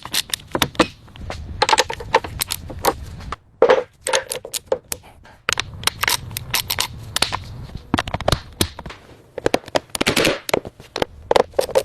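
Irregular run of sharp metallic clicks and knocks, some in quick clusters, from hand tools working on brake parts and bolts, over a low background rumble.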